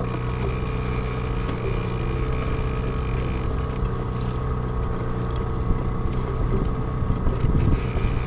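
Small 6 hp outboard motor on an inflatable boat running steadily at trolling speed. A high hiss over it drops away about three and a half seconds in.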